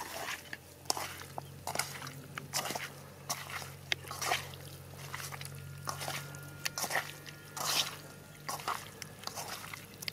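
Wet squelching of chicken pieces coated in spice masala being mixed and squeezed by hand in a steel kadai, in short irregular strokes about once or twice a second.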